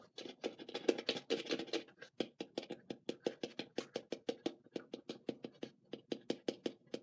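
Fingers tapping quickly and repeatedly on the hard bottom of a small handmade craft bowl, about five light taps a second. The taps are meant to show that the bottom is hard, not soft like the top.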